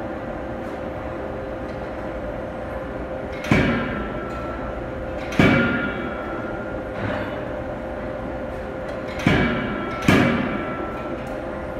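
Anyang C92K-25KJ CNC hydraulic die forging hammer striking hot steel knife blanks: four heavy blows in two pairs, each a sharp bang with a ringing metallic decay, over a steady machine hum with a constant tone.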